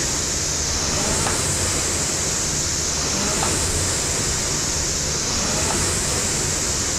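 Air-resistance rowing machine's flywheel fan whooshing, swelling with each stroke about every two seconds, with a light click at each stroke.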